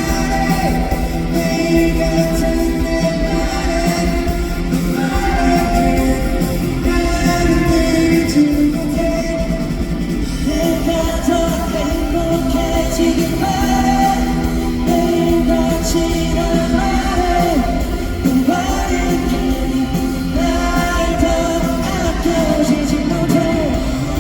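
Live pop-rock band playing with a lead vocal singing over drums, bass and guitars, amplified in a large hall.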